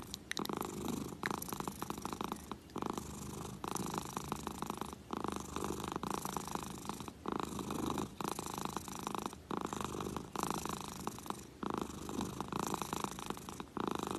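Domestic cat purring close to the microphone, the purr swelling and dipping with its breathing in a steady cycle about every two seconds.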